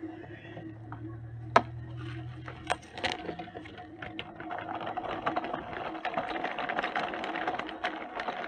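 Small electric motor and gearing of a toy construction vehicle running with a steady whine. There is one sharp click about one and a half seconds in, and a fast rattling of gears from about halfway.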